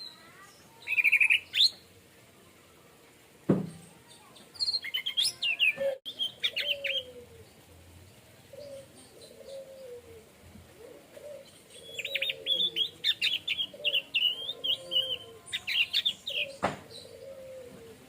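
Orange-headed thrush singing in bursts of quick, high chirping and trilling phrases, with softer, lower falling notes repeating underneath. A sharp knock comes about three and a half seconds in and another near the end.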